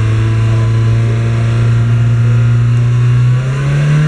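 Peugeot 306's 1.8-litre LFZ four-cylinder petrol engine running at a held fast idle of about 3,000 rpm. About three and a half seconds in, the revs rise quickly to around 4,500 rpm and hold there.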